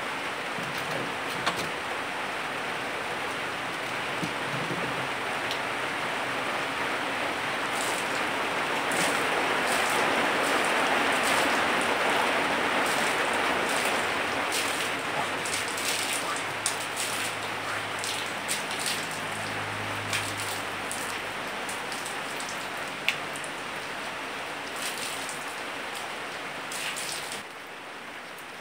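Steady rain hiss that swells in the middle and eases near the end, with scattered soft crackles of hands crumbling and mixing moist soil.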